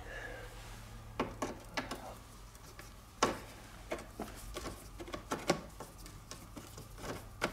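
Scattered small clicks and taps of a screwdriver working at the screws of the heater screen vents on a classic Mini's dashboard, metal on metal, over a low steady hum.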